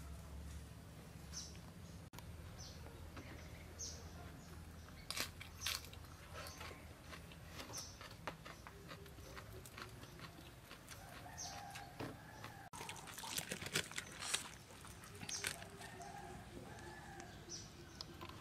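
Faint hens clucking and small birds chirping in the background, with scattered clicks and knocks of a knife and spoon against the plate. The clicks cluster loudest about 13 to 15 seconds in.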